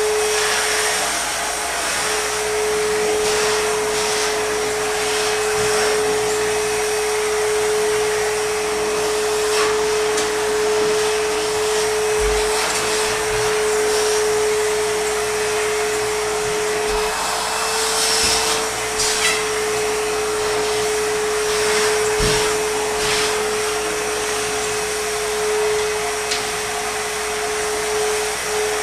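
ProTeam backpack vacuum running steadily, its motor giving a constant whine over a rush of airflow. A few sharp knocks and clicks, from the wand and tool striking surfaces, sound through the middle of the run.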